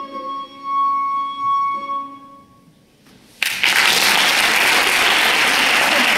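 The closing chord of an early-music ensemble of recorder, baroque violin, timple and guitar, a high note held over lower ringing strings, dies away over about two and a half seconds. After a short pause, audience applause breaks out suddenly and carries on steadily.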